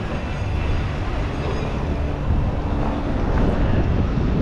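Busy street ambience: a steady low rumble of road traffic, with wind buffeting the microphone.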